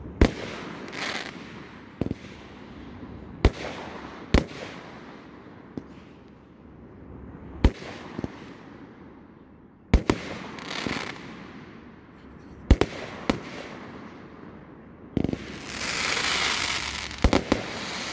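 Consumer aerial fireworks fired from the ground, shells launching and bursting overhead in about a dozen sharp bangs at uneven intervals. Near the end there are about two seconds of dense crackling, followed by a quick double bang.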